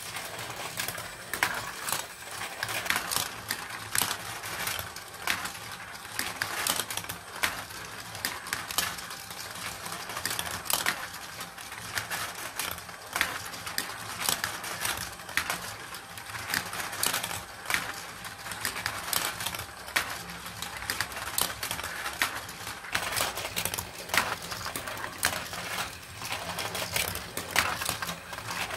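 Steel marbles running through a Gravitrax plastic marble run: a continuous rolling rattle along the rails and tracks, with frequent sharp clicks as the balls drop onto and knock against the plastic pieces.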